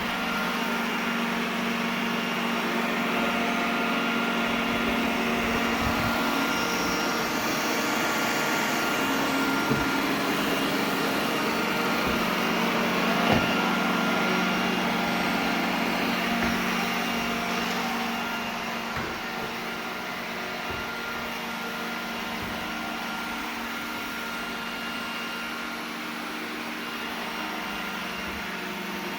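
iRobot Roomba 980 robot vacuum running: a steady motor hum and brush whir, with a few short knocks, the sharpest about halfway through. The whole sound gets a little quieter about two-thirds of the way through.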